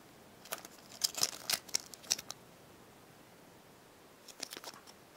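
Rustling and soft clicks from a foam squishy toy being handled, in two short bouts, the second near the end.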